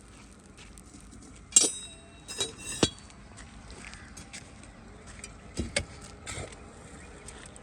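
Hard objects clinking and knocking together in a handful of irregular sharp strikes, the loudest one about a second and a half in with a brief ring, then a few quieter knocks later on.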